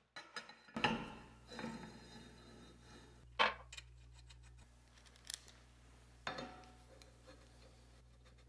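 Steel grinder parts being handled and fitted together: a square steel tube sliding into its receiver, with a few scrapes and metallic clinks of steel on steel, the sharpest about three and a half seconds in.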